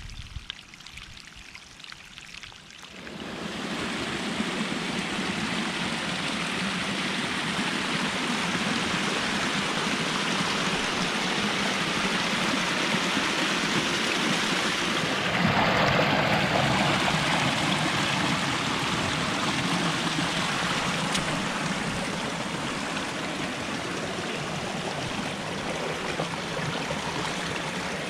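Mountain stream rushing: a steady wash of running water that comes up about three seconds in and grows a little louder about halfway through.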